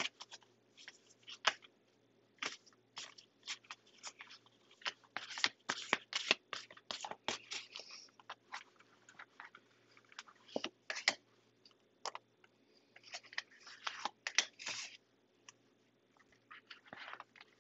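Tarot cards being shuffled and handled by hand: an irregular run of short, crisp snaps and taps, with brief pauses between clusters.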